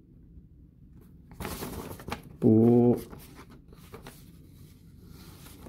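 Paper rustling as the instruction sheet is handled, then a man's short, level hesitation sound (a held "euh") lasting about half a second.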